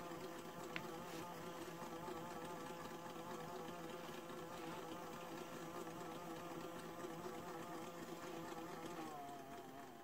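Small electric drain pump of a toy Miele washing machine buzzing steadily as it pumps water out through its hose, then slowing with a falling pitch about nine seconds in and stopping.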